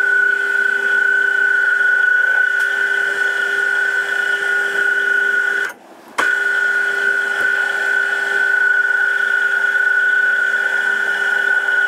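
Small metal lathe running at steady speed, its motor and drive giving a constant high whine. The whine breaks off for about half a second near the middle, then resumes unchanged.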